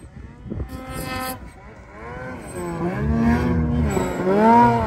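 Ski-Doo 850 Turbo snowmobile's two-stroke engine running through an RPM chambered titanium muffler, revving up and down as the sled rides through powder. The engine pitch rises and falls several times, growing louder and loudest near the end as the sled passes close.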